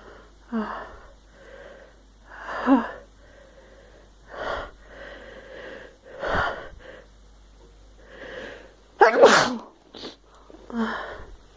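A woman sneezing several times over, with short breaths and sniffs between the sneezes, as she tickles the inside of her nose with a cotton swab. The loudest sneezes come about three seconds in and about nine seconds in.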